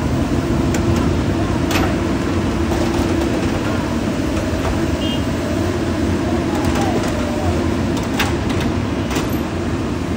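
Diesel engines of hydraulic excavators running steadily, the Komatsu PC200 nearest, with a couple of faint knocks.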